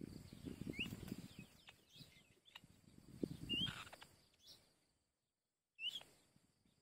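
Outdoor bird ambience: short rising bird chirps about one second in, midway and near the end, over a low rustling rumble in the first part.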